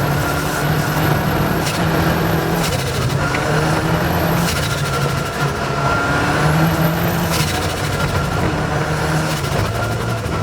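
Rally car engine under hard acceleration, heard onboard, with a high whine that rises with each pull and cuts off sharply at each gear change, about four times.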